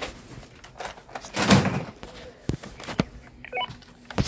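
Handling noises: a muffled thump about a second and a half in, then several sharp clicks and a brief high chirp.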